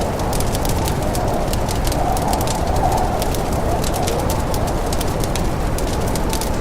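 Snowstorm wind blowing steadily with a wavering moan, over a fireplace fire crackling with many small, irregular pops.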